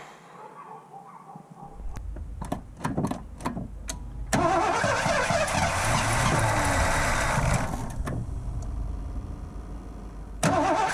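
The 5.0 L central-fuel-injected V8 of a 1984 Ford LTD Crown Victoria being cranked over by its starter after a few light clicks: one long crank of about three seconds, then a second try starting near the end. It is a hard start on an engine whose injectors are not delivering fuel and whose distributor timing the owner suspects is off.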